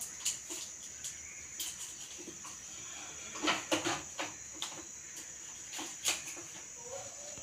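Scattered light plastic clicks and taps as a water purifier's filter cartridge and its push-fit tubing are handled, with a few knocks together about halfway through, over a steady faint high hiss.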